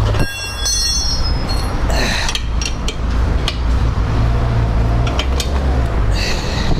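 Wrench work loosening a nut on a motorcycle's rear wheel to slacken it for a chain adjustment: a brief high metallic squeal near the start, then several sharp metal clinks, over a steady low rumble.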